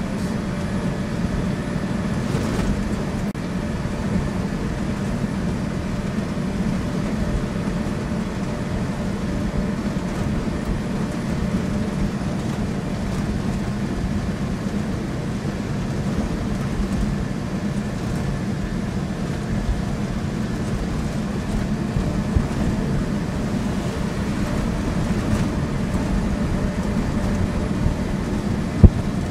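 Steady engine and road noise heard inside a vehicle's cab while driving at highway speed, a low even drone. A single sharp knock near the end.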